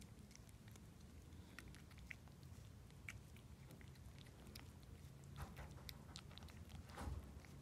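Cat licking paste from a squeeze-tube cat treat: faint, irregular wet licking clicks, with a slightly louder smack about seven seconds in.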